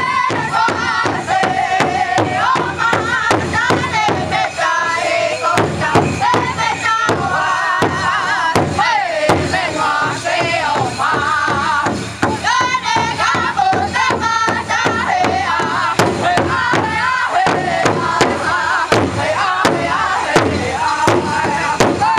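Powwow drum group beating a large shared drum with sticks in a steady beat while singing together in high, chanted voices.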